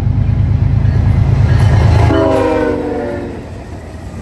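Norfolk Southern diesel freight locomotives passing close, their engines' deep pulsing rumble at its loudest about two seconds in. A short blast of the locomotive's multi-tone horn follows, its pitch dropping slightly as it goes by. After that the sound eases to the lower rumble of the passing train.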